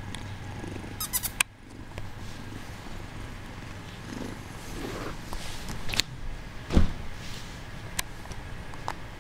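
Bengal kitten purring steadily, with a few sharp clicks and knocks from movement on the bed and a loud thump about seven seconds in.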